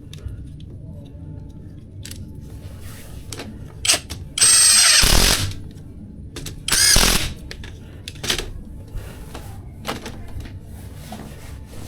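Handheld electric power tool run in two short bursts, the first about a second long with its motor pitch rising and falling, the second about half a second, with scattered knocks and clicks around them.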